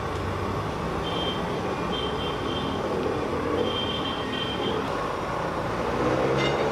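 Steady city traffic noise from a busy road, with a few brief high squeals and a short click near the end.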